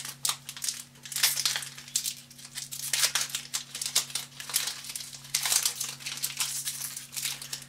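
Foil wrapper of a Magic: The Gathering booster pack crinkling and crackling in the hands as it is worked open, in a dense run of irregular crackles.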